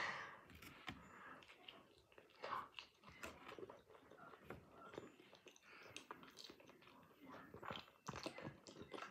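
Faint close-up chewing and biting of a taco, with small wet mouth clicks and crunches coming irregularly.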